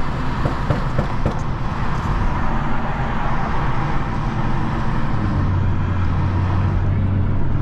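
Inside-the-cabin sound of a BMW 435i's N55 turbocharged straight-six driving, with steady road and tyre noise. About five seconds in, a steady low engine drone comes up and holds.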